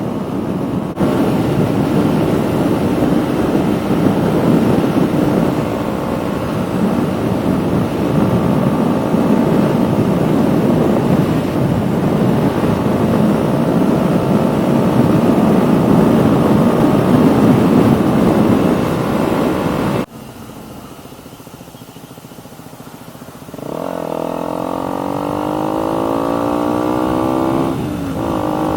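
KTM Duke 125's single-cylinder four-stroke engine through a Radical Racing GP carbon full exhaust system, ridden at speed with heavy wind noise. About two-thirds through the sound drops sharply, then the engine's pitch climbs as the bike accelerates, with a short break near the end like a gear change.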